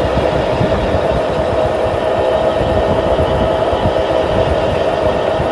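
Go-kart motor running steadily at speed: a constant, unchanging drone.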